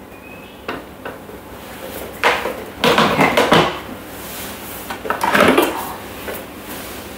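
Clatter and clunks of a Thermomix being opened: the plastic simmering basket lifted off the lid, the lid taken off, and the stainless steel mixing bowl lifted out of its base. A few light clicks in the first second, then louder bursts of handling about two, three and five seconds in.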